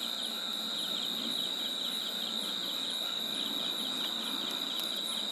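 A steady high cricket trill with a fast, even pulse, over the faint hiss of namak para frying in hot oil in a kadhai.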